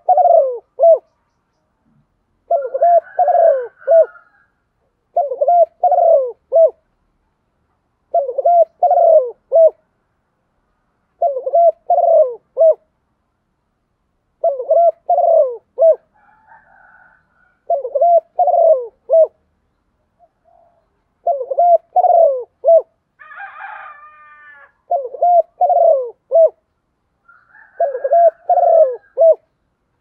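Spotted dove cooing, repeating its short phrase of three or four quick notes about every three seconds. A brief, higher call from another bird sounds once, about two-thirds of the way in.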